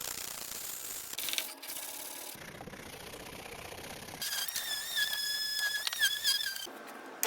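Rubbing and scraping on wood in short cut-together bursts, then a high, slightly wavering squeal lasting about two and a half seconds that stops abruptly.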